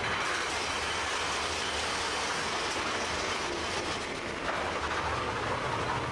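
Big Thunder Mountain Railroad's mine-train roller coaster cars running along the track, heard from aboard the ride: a steady noise of wheels on rail.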